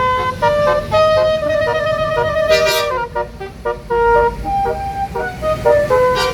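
Telolet basuri bus horn playing a quick multi-note tune, one clear tone at a time stepping up and down, over a low traffic rumble.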